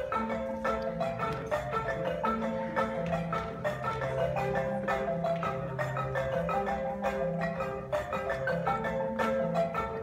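Ensemble of wooden-keyed marimbas with tube resonators playing a fast, repeating pattern of mallet notes. Low bass notes come in right at the start and keep a slower line beneath.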